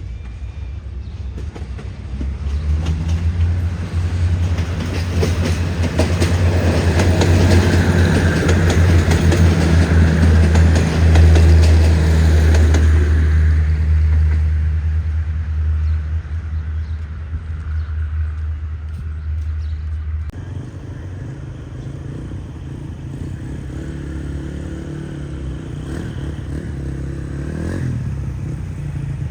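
Diesel train passing close by: a loud, steady engine drone with wheel-on-rail clatter that builds to its loudest about a third of the way in and then fades. The drone cuts off about two-thirds in, and a quieter engine sound carries on.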